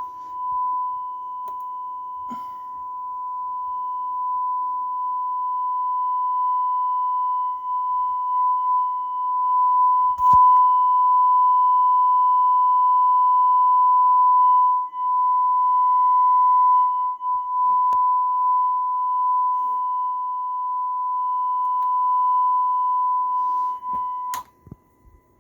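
Steady 1 kHz sine test tone played through an amplifier under test, its loudness slowly swelling and dipping, with a few sharp clicks. This is the test signal for checking the repaired amplifier's output.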